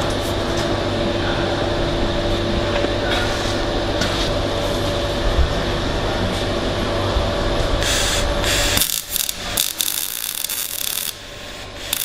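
A steady fan-like hum with a hiss and two faint steady tones, with small knocks of the steel branch and level being handled. About nine seconds in, the hum cuts out, leaving a few scattered clicks and rattles.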